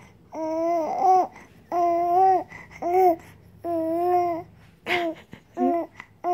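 A 3-month-old baby girl cooing: a string of high, drawn-out vowel sounds about a second apart, each held at a steady pitch, with the last few shorter.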